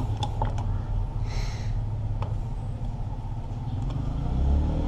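A steady low rumble that swells slightly near the end, under a few faint clicks and a brief scrape as a T-handle hex key works the screws of a motorcycle stator coil.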